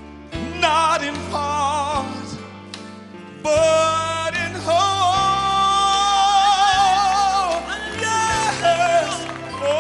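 Solo male gospel singer singing with strong vibrato over band accompaniment. After a few shorter phrases, he rises about three and a half seconds in to a loud high note held for about four seconds, then sings on.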